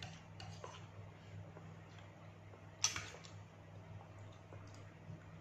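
Faint eating sounds: scattered small clicks and taps on plates, with one sharper clink about three seconds in, over the steady low hum of an electric pedestal fan.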